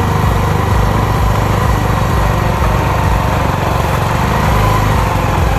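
Bajaj Pulsar 150's single-cylinder engine running steadily under throttle during a burnout attempt.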